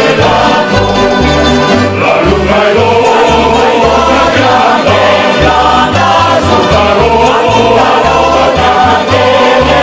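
An Ionian kantada: several voices singing in harmony over string accompaniment, with a steady, evenly paced bass line.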